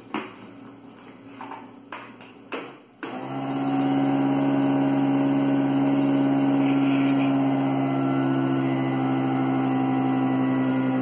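Countertop blender switched on about three seconds in, then running steadily as it mixes chocolate cake batter. Before it starts there are a few light knocks and clicks.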